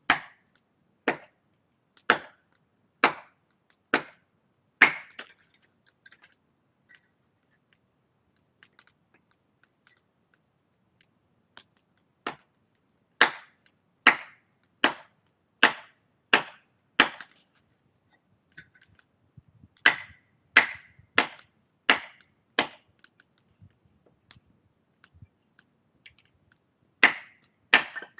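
Firewood being chopped: sharp blade strikes on wood about once a second, in runs of five to seven with pauses between.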